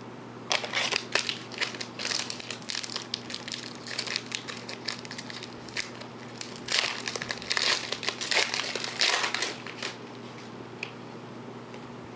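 Foil trading-card pack wrapper crinkling as it is torn open, in two long spells of crackling that stop near the end.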